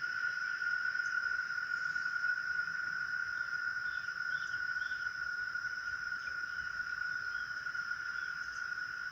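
Crickets trilling in a steady, unbroken chorus at one high pitch, with a few faint short chirps about halfway through.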